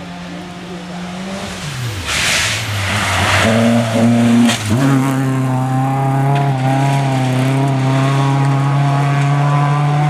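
Rally car engine on a gravel stage: the revs drop about a second and a half in as the car comes off the throttle for the corner, then a loud rush of gravel and tyre noise. The engine note jumps up near the middle and holds steady as the car accelerates away.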